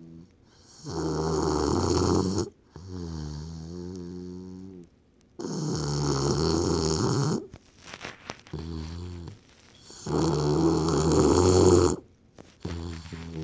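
Snoring in a steady rhythm: three loud, rasping in-breaths about four and a half seconds apart, each followed by a quieter, humming out-breath.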